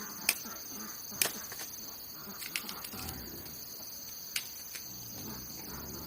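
Steady high-pitched chirring of crickets or similar insects, with a few sharp clicks or snaps, the loudest near the start and one later on.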